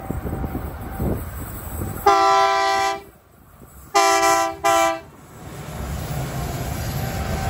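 Diesel freight locomotive's multi-note horn sounding a long blast of about a second, then two shorter blasts, over wind buffeting the microphone. The rumble of the approaching locomotives builds near the end.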